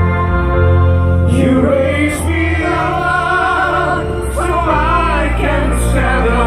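Song played over a stage PA: held chords at first, then a singing voice comes in about a second in and carries on over the chords.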